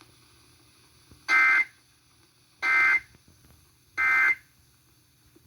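Emergency Alert System end-of-message code sent over FM radio: three short, identical bursts of two-tone digital data squawk, about 1.3 seconds apart. The three bursts mark the end of the alert.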